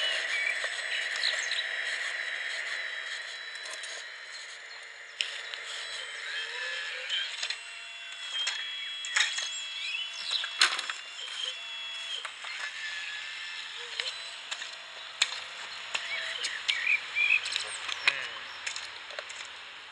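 Radio-controlled Liebherr R944B model hydraulic excavator working, its pump and drives whining in steady tones that shift in pitch as it digs and swings, with sharp clicks and knocks. Birds chirp throughout.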